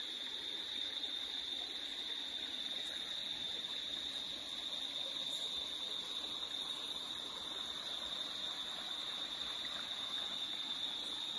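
Crickets trilling in one steady high tone over a soft, even rush of flowing river water.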